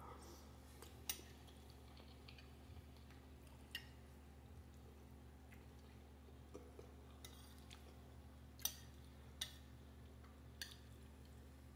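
Faint eating sounds: a spoon clicking against a plate of pasta a handful of times, the loudest about three-quarters of the way through, over a low steady hum.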